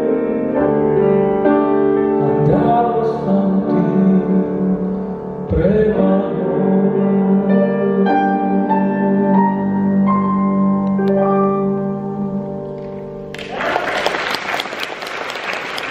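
A man singing into a microphone with grand piano accompaniment, the song closing with a few rising piano notes. Near the end the audience breaks into applause.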